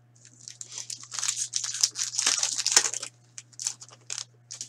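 A foil hockey card pack being torn open and its wrapper crinkled: a dense crackling for about two seconds, then a few short crinkles near the end.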